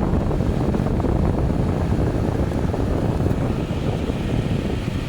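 1998 Kenmore window air conditioner running on low fan, its blower moving air in a steady rush with a low hum underneath from the running unit.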